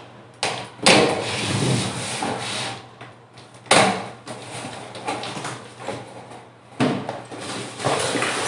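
Long cardboard box being slit along its taped seam and its flaps pulled open, cardboard scraping and rustling in several bursts, the longest about a second in.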